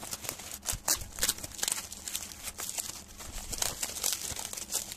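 Bubble wrap packaging crinkling and crackling as it is handled and unwrapped, in quick irregular crackles.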